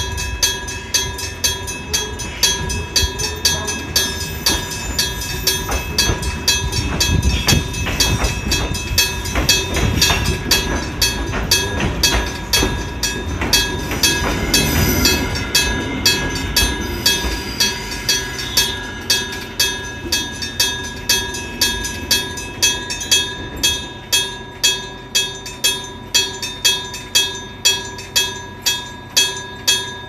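Electric-bell level-crossing alarm, an old gong-type bell surviving from the Keifuku railway era, ringing steadily at about two strokes a second. A train's low rumble swells under it in the middle and fades away.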